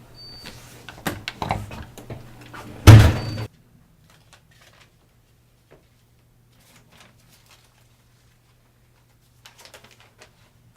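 A door shut with one loud thump just before the three-second mark, after a few lighter knocks and rattles; the sound cuts off sharply.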